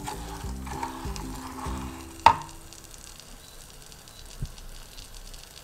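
Wooden spoon stirring and scraping clumps of melting sugar in a saucepan as caramel forms, with a sharp knock of the spoon about two seconds in.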